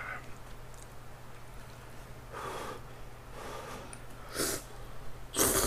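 Soba noodles in hot curry broth being slurped from a bowl in four short noisy sucks, the last the loudest, near the end. A faint steady low hum runs underneath.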